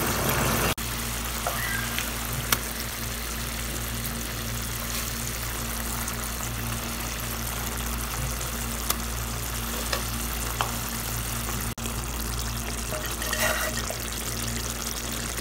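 Tomato-onion gravy simmering in a pan, a steady bubbling hiss over a low steady hum, with a few faint taps. The sound breaks off briefly twice.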